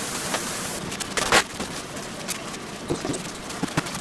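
Gloved hands kneading and squeezing raw ground meat for hamburg steak in a stainless steel bowl: irregular wet squelches and small crackles, with one louder squelch a little over a second in.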